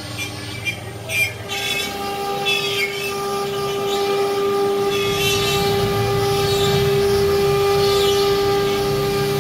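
CNC router spindle running with a steady high whine, with a harsher cutting noise from the bit that comes and goes.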